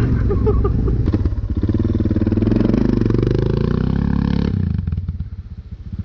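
Yamaha Ténéré 700's parallel-twin engine, running through a Yoshimura RS-12 slip-on exhaust, pulling along a dirt trail with its pitch rising and falling. About four and a half seconds in, the throttle closes and the engine drops back to a low idle as the bike slows.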